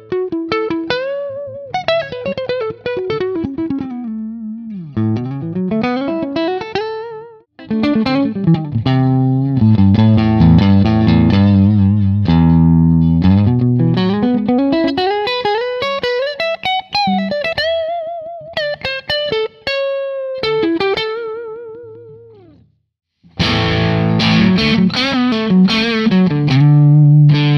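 Electric guitar played through Overloud TH-U amp-simulator presets, in phrases with sliding notes. It starts on clean tones and, after a short break near the end, turns to a denser, overdriven tone.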